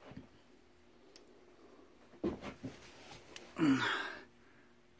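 A person's breathy sigh with a little voice in it, falling in pitch, about three and a half seconds in. A few faint short knocks come just before it.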